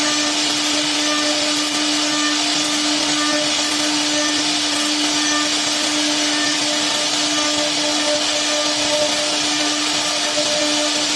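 Spindle of a 3-axis CNC router running steadily: a constant high whine over an even hiss.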